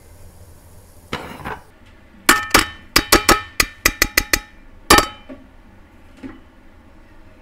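Stainless mesh strainer knocked against the rim of a glass plate to shake boiled noodles off: about ten sharp, ringing clinks in quick succession, the last a little apart. They come after a brief noisy rush about a second in.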